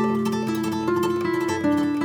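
Instrumental background music: a melody of plucked string notes over held chords.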